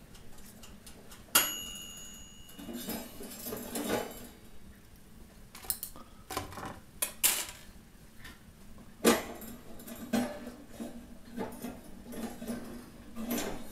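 A metal spoon clinking and scraping against metal rotisserie skewers and a plate as battered chicken balls are pushed off onto the plate. One clink near the start rings on briefly with a clear tone, and scattered taps and clinks follow.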